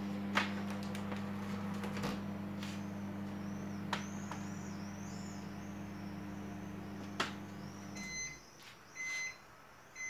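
Microwave oven running with a steady hum that cuts off about eight seconds in, then beeping at the end of its cycle, short beeps about a second apart. A few sharp clicks come during the hum.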